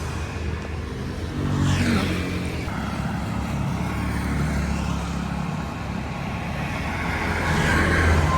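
Road traffic: a steady engine rumble, with a vehicle passing about two seconds in and another near the end.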